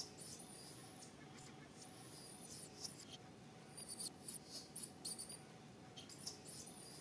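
Newborn macaque crying in short, very high-pitched squeals that come in several clusters: the distress calls of an upset infant monkey.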